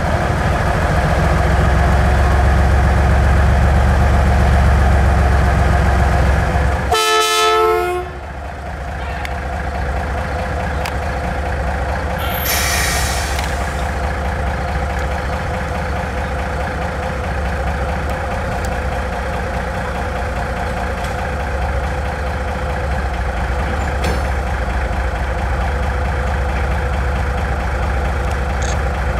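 Diesel locomotive idling with a steady low rumble. About seven seconds in there is a brief horn toot, and about twelve seconds in a short hiss of air.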